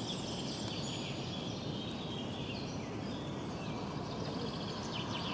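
Outdoor ambience: small birds chirping and trilling over a steady low background noise.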